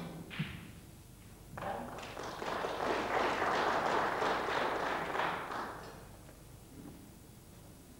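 A single sharp click, then audience applause in a hall that builds, holds for a few seconds and dies away.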